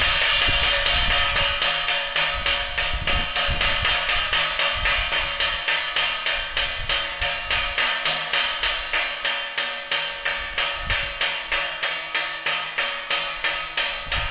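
Homemade bird-scaring clapper striking over and over at an even pace, about three knocks a second.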